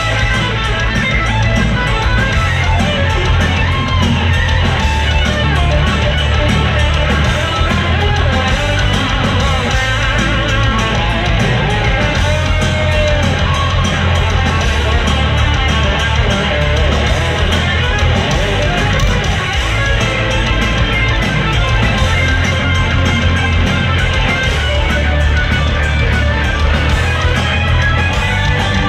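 Live heavy metal band playing loud: a distorted electric guitar solo with bends and vibrato over drums and bass guitar.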